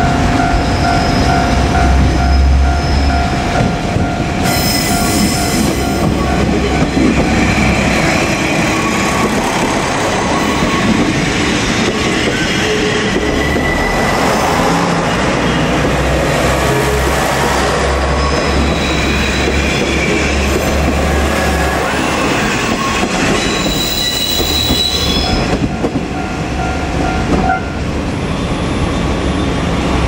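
JR Kyushu KiHa 47 diesel railcar passing slowly at close range, its diesel engine running loudest as it goes by, with wheels squealing on the curves and points. A level-crossing warning bell rings steadily at the start and again near the end.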